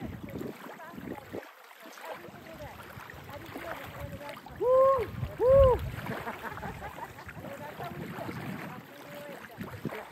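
Small lake waves lapping on a sandy shore, with wind on the microphone. About halfway through, two short, loud calls come in quick succession, each rising and then falling in pitch.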